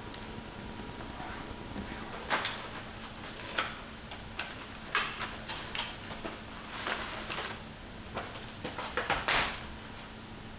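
A plastic case of acrylic paint tubes being opened and the tubes handled: a string of short clicks, rustles and sliding knocks, some close together in pairs, over a faint steady hum.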